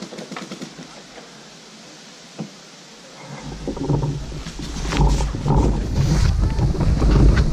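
Rumbling handling noise on a body-worn camera's microphone as the wearer moves, starting about three seconds in and growing loud, with a few sharp clicks mixed in. Before it there are only faint clicks and one sharp pop.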